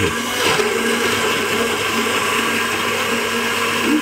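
Electric blender running steadily at speed, puréeing carrots, walnuts and water into a sauce: an even motor hum with a whir.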